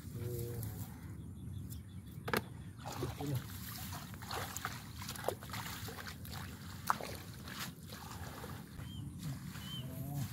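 Hands sloshing and splashing in shallow, muddy rice-field water and rustling wet rice straw, with irregular small splashes and clicks.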